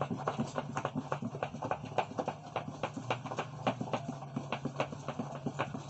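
Spatula beating bean batter in a plastic bowl, fast rhythmic tapping at about five or six strokes a second. The batter for akara is being whipped to work air into it and make it fluffy.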